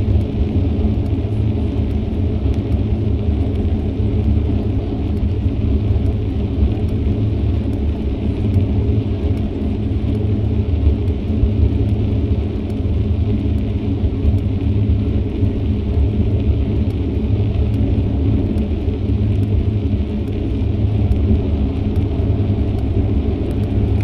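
Steady wind rumble on a moving action camera's microphone, with the tyre and road noise of a bicycle being ridden.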